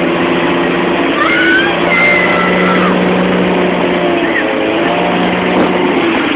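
Motorboat engine running steadily at towing speed, under a constant rush of wake water and wind.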